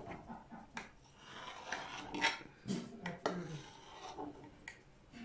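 A knife cutting through cake in a glass baking dish, its blade scraping and clicking against the glass in short, irregular rasping strokes.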